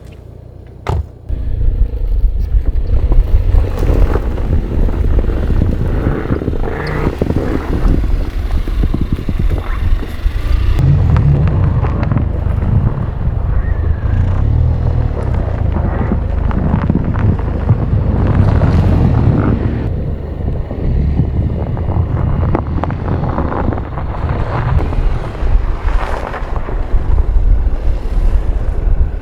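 Strong gusty wind buffeting the microphone: a loud, deep rumble that starts abruptly about a second in and surges and eases with the gusts.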